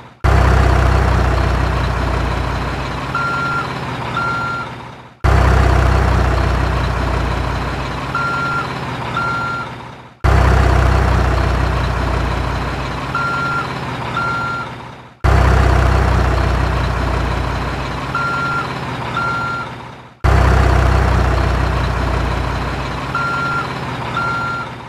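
Heavy truck engine starting with a sudden loud, low rumble that fades, followed by two short reversing beeps about a second apart. The same five-second sound repeats five times, each time cutting off abruptly.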